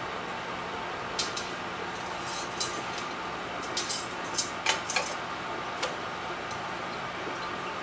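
Stainless steel kitchen tongs clicking and clinking in a scatter of sharp metallic clicks, over a steady hiss.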